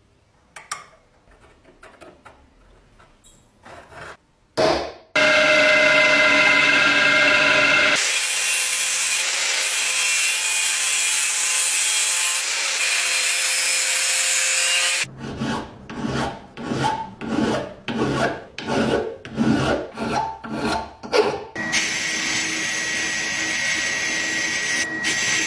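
A few small handling sounds, then an angle grinder runs up and cuts through a steel strap with a loud, even grinding for about seven seconds. Next come rhythmic rasping strokes on metal, about two a second. Near the end comes the steady hiss of a sandblasting gun in a blast cabinet.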